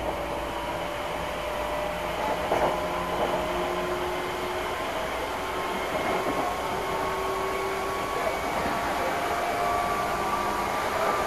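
Meitetsu Inuyama Line electric express train running, heard from inside the passenger car: a steady rumble and rush with faint whining tones that drift slowly in pitch, some edging upward near the end.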